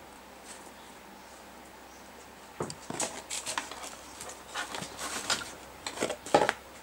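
Handling noise: a run of rustles, light knocks and clicks as things on a cluttered bench are handled and moved. It starts about two and a half seconds in and is loudest just before the end.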